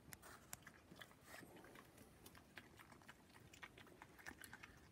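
A European badger eating peanuts and dog biscuits from a tray: faint, irregular crunching and clicking as it bites and chews.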